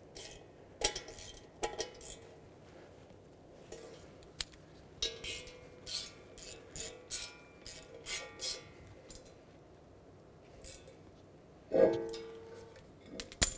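Small ratchet and socket tightening backing-plate bolts on a steel wheel knuckle: bursts of quick ratchet clicks, about three a second in the middle, among light metal tool clinks. Near the end comes a louder metal clink that rings briefly.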